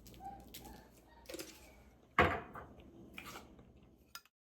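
Kitchen handling noises: scattered light clicks and rustles, with one sharp knock about two seconds in, as of a dish or utensil set down hard. The sound cuts off abruptly near the end.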